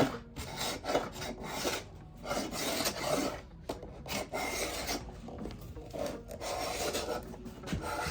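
Wood being rubbed down by hand with an abrasive in repeated, uneven back-and-forth strokes, taking down rough spots so a dowel joint fits more closely.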